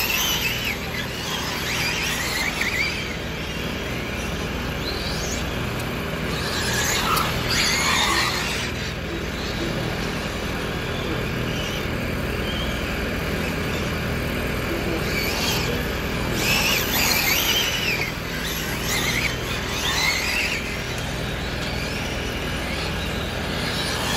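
Electric 1/7-scale Arrma on-road RC race cars passing through the corners of an asphalt track, their brushless motors whining and tyres squealing. The cars go by in bursts every few seconds over a steady background rush.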